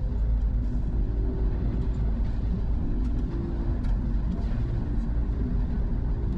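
Car interior road noise while driving: a steady low rumble of tyres and engine, with a faint even hum.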